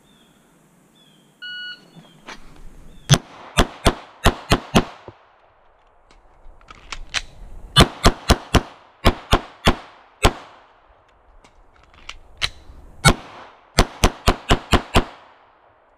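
A shot timer beeps once, then a 9mm Glock 19 pistol fires rapid shots in three strings, about 21 in all. The strings are separated by two pauses of a couple of seconds where the magazines are changed.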